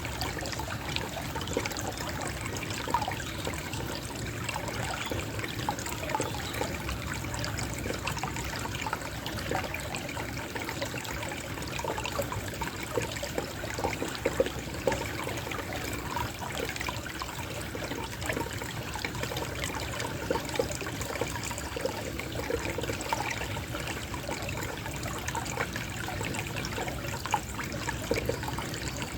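Water trickling steadily in a small gentle flow, with many little bubbling plinks over a continuous rush.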